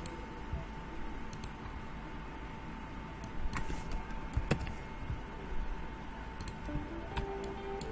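A few separate computer mouse clicks and keyboard taps, spaced irregularly, over a steady background hum.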